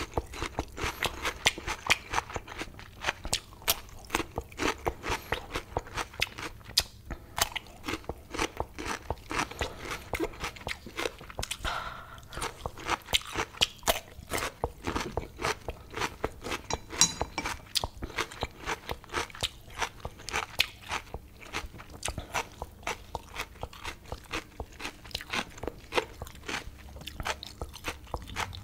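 Close-miked crunching and chewing of fresh whole cucumber, with many sharp crisp crunches several times a second.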